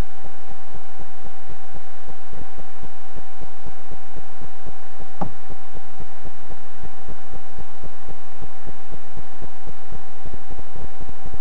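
Trail camera's own recording noise: a steady high electronic whine over a rapid, irregular low crackle, with a single sharp click about five seconds in.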